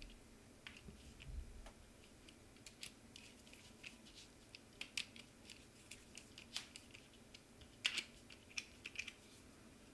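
Faint, irregular small clicks and ticks of a hex screwdriver turning the M3 bolt that holds a small toothed idler pulley in a 3D-printer offset idler mount, the loudest click a little before eight seconds in.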